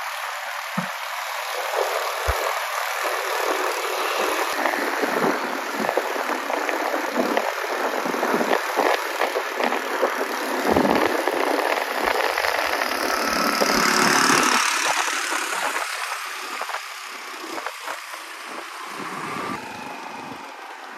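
Motorbike engines running while riding along a road, under a steady rush of wind and road noise from the moving ride; it grows louder for a moment about fourteen seconds in.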